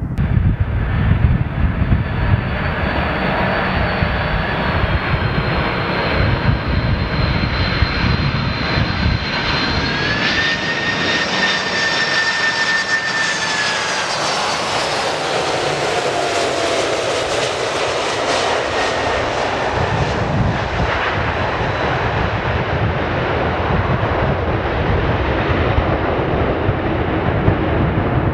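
Jet airliner's engines running as it flies by: a loud roar with a high whine that steps up in pitch about ten seconds in, then slides down in pitch as the aircraft goes past.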